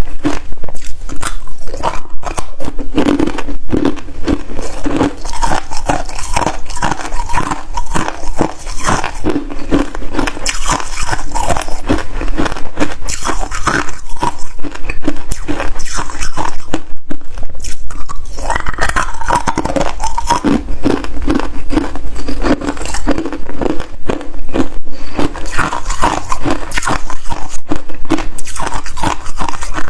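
Freezer frost being bitten and chewed, a dense run of crunches following one another without a break.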